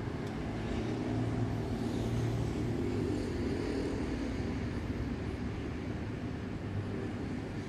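Steady rumble of traffic and engines, with a low hum that swells slightly a second or two in.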